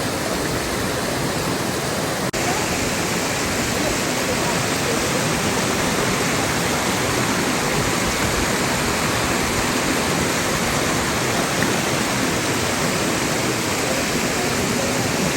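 Waterfall rushing: a steady, even noise of falling water, with a brief dropout about two seconds in.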